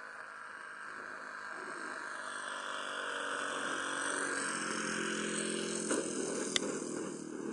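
Motor and propeller of a radio-controlled model Pilatus PC-21 running steadily as it comes in low to land, getting louder as it nears. Two sharp knocks come about six seconds in as it touches down and rolls on the grass.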